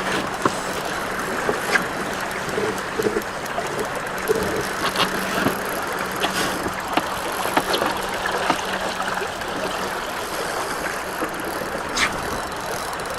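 Steady rushing of river current around the boat, with a low steady hum that fades out about halfway through and scattered small clicks.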